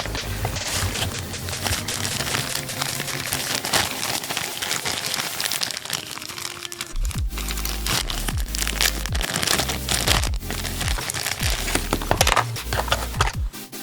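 Electronic dance music with a heavy bass and falling sweeps, over the crinkling and rustling of packaging being handled.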